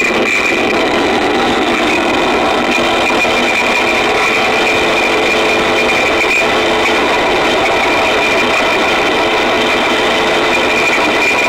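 Harsh noise: a loud, unbroken wall of distorted, churning noise at constant loudness, with a steady high whine running through it.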